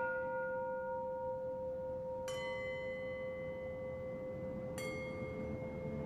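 Soundtrack music of struck bell tones, each strike ringing on for seconds with a new one about every two and a half seconds, over a low rumbling bed.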